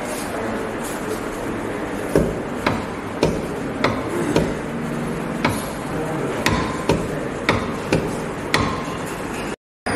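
Hand-cranked demonstration generator, a crank driving a small motor through a belt, clicking sharply about once every half second as it is turned, starting about two seconds in. The sound cuts out briefly near the end.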